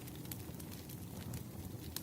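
Campfire burning: a steady low rumble of the flames with irregular sharp crackles and pops of burning wood.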